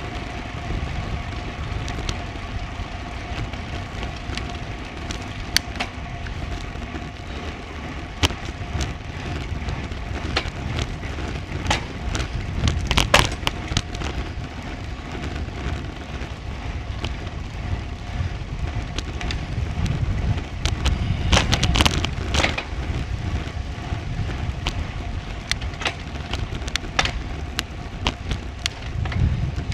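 Riding noise of a road bike picked up by a bike-mounted action camera on a climb: steady rumble and wind hiss, with irregular sharp clicks and rattles that bunch into louder clusters a few times.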